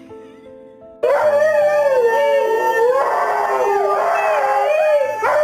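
Dog howling: a long, wavering howl that starts suddenly about a second in, over soft background music.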